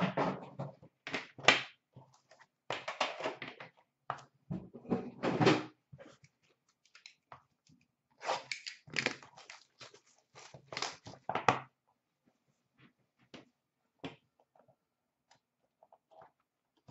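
An Upper Deck The Cup hockey card tin and the box inside it being opened and handled: knocks, scrapes and rustling in irregular bursts, then only faint scattered clicks for the last few seconds.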